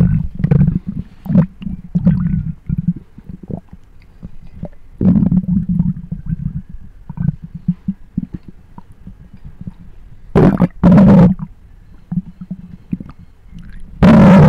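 Close-miked human stomach growling: irregular low gurgling rumbles, with louder surges about five seconds in, twice in quick succession around ten to eleven seconds, and again near the end, the loudest ones near clipping.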